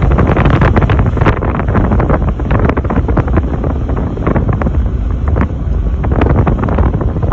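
Heavy wind buffeting the microphone on a moving car, with road and engine noise from the supercharged Lexus IS300 beneath it.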